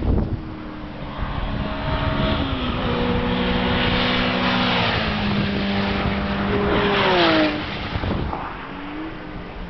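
Racing car engine approaching at speed and passing close by, loudest about seven seconds in, where its note drops sharply as it goes past; a smaller falling note follows near the end.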